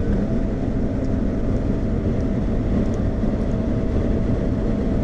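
Steady road and engine noise inside a Jeep cruising on the highway: a constant low rumble of tyres and wind with a faint steady hum.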